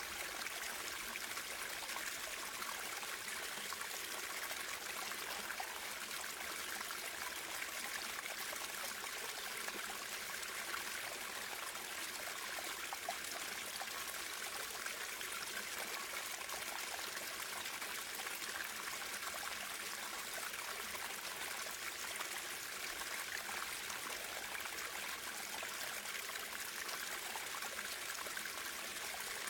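Water running steadily over stones in a small stream, with a trickling, babbling surface.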